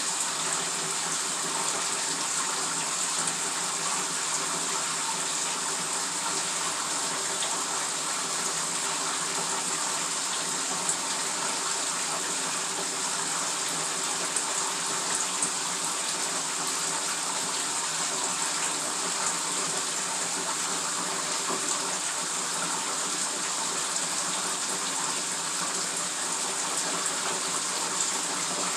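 A bathtub faucet running, water pouring steadily into the filling tub.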